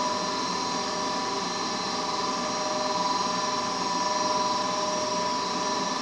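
Goodman gas furnace's draft inducer motor running steadily, an even whir with a few constant whining tones, during an ignition attempt in which the burners fail to light.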